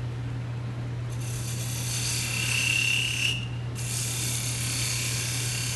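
A turning tool cutting spinning wood on a lathe, taking a light cut to fit a box lid: a hissing cut that starts about a second in, breaks off briefly past the middle and resumes, over the lathe's steady hum.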